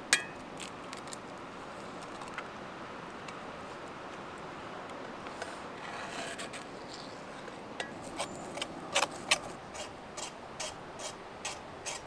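A metal spoon scraping and clicking against a skillet as eggs are stirred, in a quick irregular run of sharp strokes from about two-thirds of the way in. Under it is a steady hiss from the gas camping stove burner and the frying eggs.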